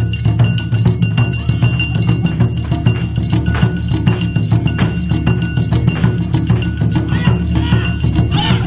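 Music with a steady, heavy low beat and sharp clicking percussion, with held ringing tones above it. A wavering pitched sound comes in near the end.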